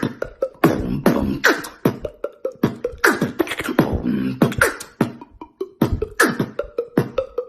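Beatboxing: a steady beat of vocal kick-drum hits with snare and hi-hat sounds in between, a kick a little more than once a second. A held low tone runs under much of the beat.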